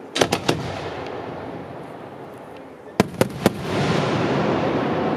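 Fireworks display: aerial shells bursting in two quick sets of three sharp bangs, the first just after the start and the second about three seconds in. From about four seconds a louder continuous rumble follows.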